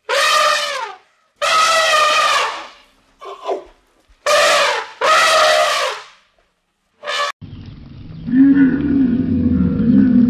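African elephant trumpeting: six short blasts, each under a second, one of them fainter. About seven seconds in, a camel takes over with a continuous low groaning and rumbling, its pitch rising in two calls.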